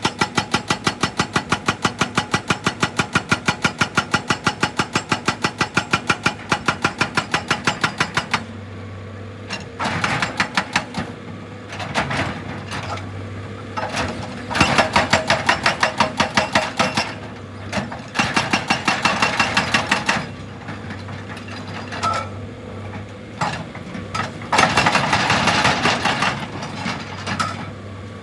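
A heavy percussive rock-breaking machine hammering on rock in a fast, even rhythm of about five or six blows a second, stopping about eight seconds in. After that a machine engine hums steadily under intermittent bursts of hammering and grinding.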